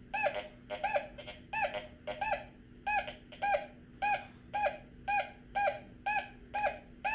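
Teknetics T2 SE metal detector beeping as its NEL Sharpshooter coil is swept back and forth over a penny lying among iron: a steady run of short, identical tones, about two a second, each rising and falling slightly in pitch, with a faint steady hum underneath.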